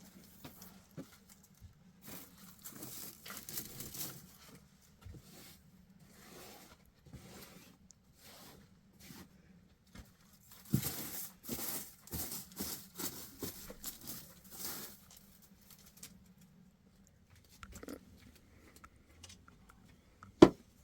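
Irregular rustling and scraping handling noises in two longer spells, with a single sharp knock near the end.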